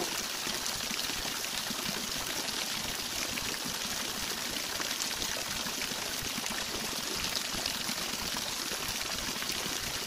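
Waterfall: water rushing steadily as it cascades over tiered rock ledges.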